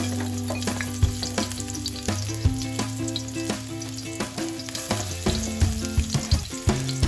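Chopped onion, then garlic, dropped into hot cooking oil in a wok and sizzling, with many quick crackles and pops.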